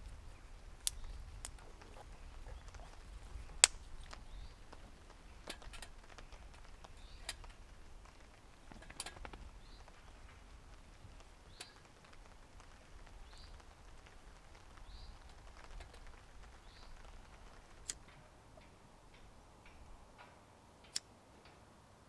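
Split wood pieces clacking as they are set upright into a small folding steel stove. Scattered sharp knocks, the loudest a few seconds in, sit over quiet handling noise.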